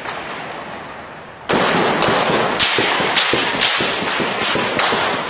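Small-arms gunfire: a string of about eight shots, roughly two a second, each with a trailing echo. They begin about a second and a half in, after the fading echo of earlier fire.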